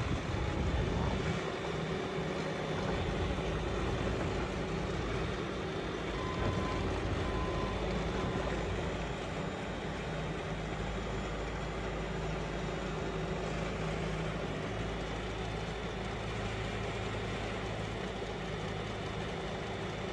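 2015 Bobcat T590 skid steer's 66-horsepower diesel engine running steadily. About a third of the way in there are three short, faint beeps.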